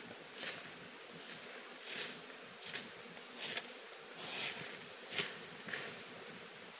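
Dry leaves swept and scraped across the forest floor with a long stick, in short swishing strokes about one every second. A steady insect buzz runs behind them.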